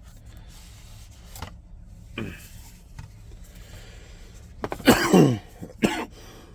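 A few faint handling knocks, then about five seconds in a man's short cough with falling pitch.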